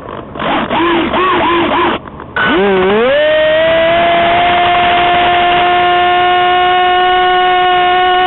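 A motor spinning up: after a few short wavering bursts, its pitch rises quickly about two and a half seconds in and then holds as a steady, loud whine.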